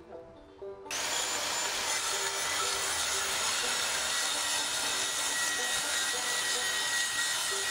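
Handheld electric circular saw cutting through a sheet of board, starting about a second in and running steadily through the cut with a steady high whine.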